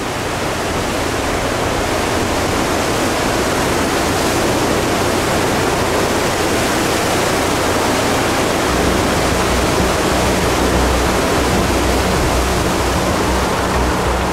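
Lake Superior surf: waves breaking close by, a loud, even, steady rush of water.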